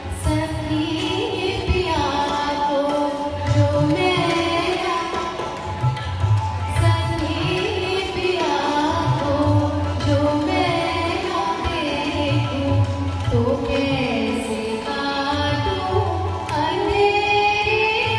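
A woman singing in long, sliding phrases, with a drum keeping a steady rhythm underneath.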